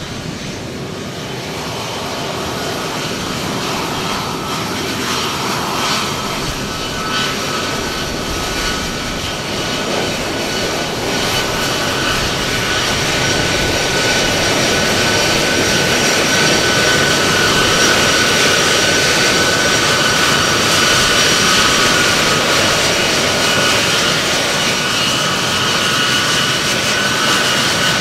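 Boeing C-17 Globemaster III's turbofan engines whining as the jet taxis in, with several high steady whistling tones over a rushing roar. The sound grows steadily louder as the aircraft draws closer, then holds at full volume for the last third.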